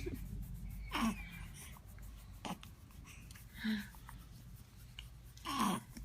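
A baby making a few short breathy vocal sounds, spaced one to two seconds apart, the last a brief falling squeal near the end.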